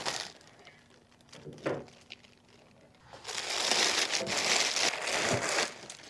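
Clear plastic bag wrapping crinkling as it is pulled off a machine, through the second half; before that, one brief knock.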